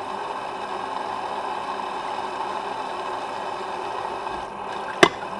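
A steady mechanical hum with one sharp click about five seconds in.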